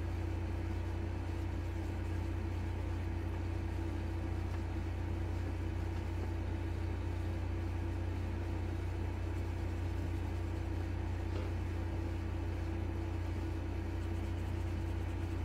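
A steady low hum, with a fainter steady tone riding above it.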